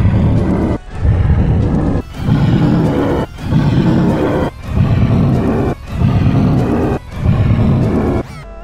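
A cartoon dragon's roar sound effect, distorted and looped, repeating about every second and a quarter with a sharp cut between repeats.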